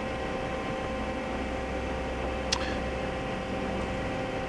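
Southwestern Industries FHM 5 CNC vertical mill powered up, giving a steady electrical hum and whine with a low drone underneath. A single short click sounds about two and a half seconds in.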